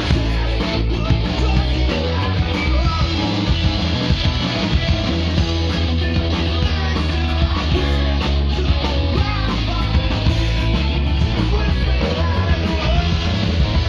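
Punk rock song played loud and steady by a band of electric guitars, bass guitar and drums.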